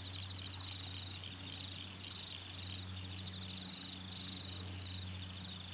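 Insects trilling in a steady high-pitched chorus of fast pulses, over a steady low hum.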